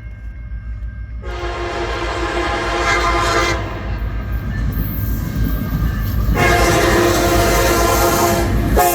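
Horn of the approaching CN EMD SD70M-2 locomotive leading a freight train, sounding long blasts over the low rumble of the train. The first blast starts about a second in and a second begins past the middle, and the sound grows louder as the train nears.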